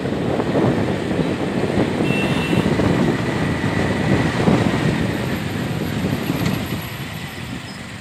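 Road noise of a moving vehicle in traffic: a steady rumble of engine and tyres that fades out near the end.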